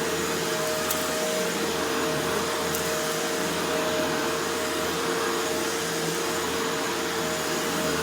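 Shark Rotator Powered Lift-Away NV650 upright vacuum running steadily over carpet: a wind-like rushing of air with a steady whine.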